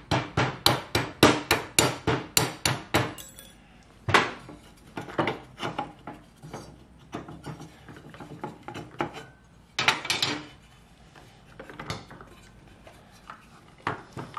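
Hammer blows on a tiller's steel tine assembly, knocking the tines along their shaft: a quick run of about four strikes a second for the first three seconds, then scattered single strikes. One tine is stuck fast on the shaft.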